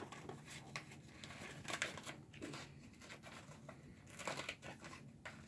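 Plastic toy packaging crinkling and rustling in short, irregular crackles as a doll's garment bag is handled and opened.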